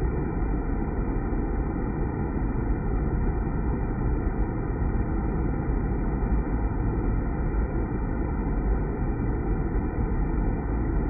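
Water pouring and splashing into a partly filled deaerator tank, a steady rushing rumble that does not change.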